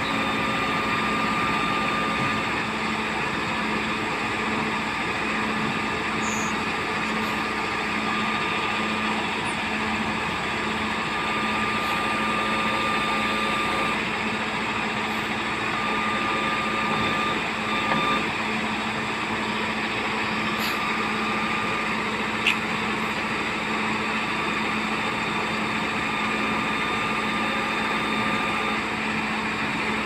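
A Lovol backhoe loader's diesel engine running steadily at an even speed, with a thin high whine that comes and goes.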